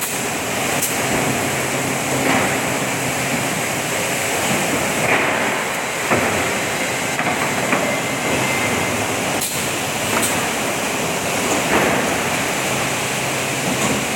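Industrial plywood sanding machine running: a steady, loud grinding noise over a low hum, with a few short knocks here and there.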